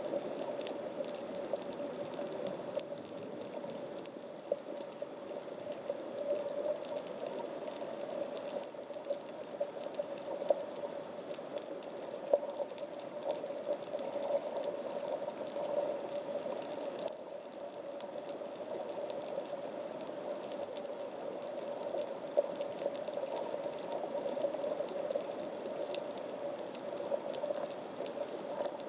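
Underwater coral-reef ambience picked up through a camera's waterproof housing at about 15 m depth. It is a steady, muffled hum with a constant scatter of faint crackling clicks.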